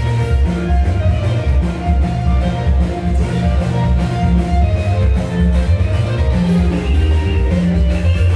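Instrumental music with a steady beat, a strong bass line and guitar.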